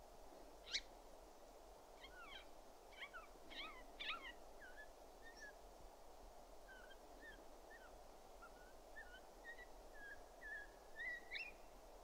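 Siberian jay calling: one sharp call about a second in, then a quick run of short chirps, followed by a quieter series of short notes that slide up and down.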